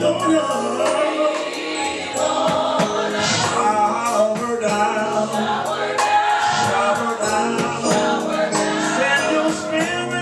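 Gospel worship song: a choir singing with a band. The lyrics were not picked up.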